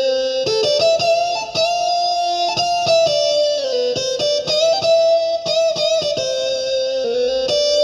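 Korg Nautilus keyboard playing a plucked-string, guitar-like patch: a quick melody of plucked notes with slides between pitches over a few lower notes.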